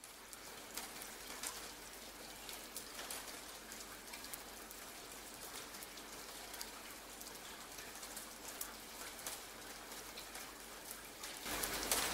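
Steady rain falling, with a fine patter of individual drops; it grows louder near the end.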